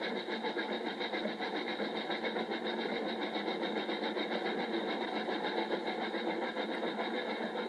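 A small motor running steadily with a fast, even mechanical ticking.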